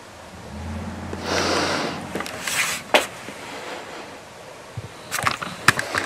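Breathing through a respirator: a long hissing breath, then a shorter one, with sharp clicks and knocks, one about halfway through and a quick cluster near the end.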